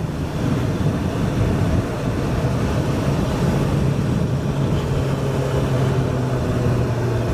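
Suzuki GSX-S1000's inline-four engine running under way at a steady cruise, heard from on board, its note easing a little lower near the end.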